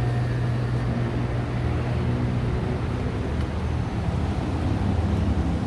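A large engine droning steadily at a low pitch, its note dropping and shifting about three to four seconds in.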